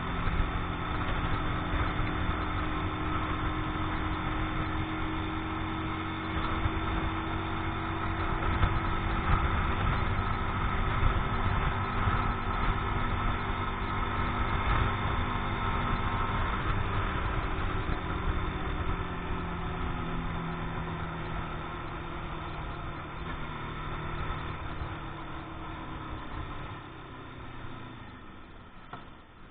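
Keeway X-Light 125 motorcycle engine running at road speed, with wind noise on the handlebar-mounted camera. The bike is still being run in. About halfway through the engine note starts to drop, and it grows quieter near the end as the bike slows.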